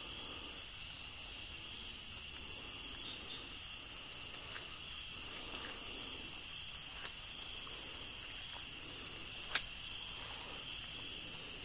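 Night insects chorusing: a steady, high-pitched drone in several layers that never breaks, with one sharp click about three-quarters of the way through.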